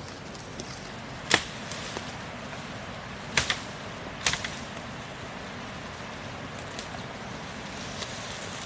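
Three sharp knocks, about a second in, at three and a half seconds and at four seconds, over a steady background hiss, with a few fainter ticks.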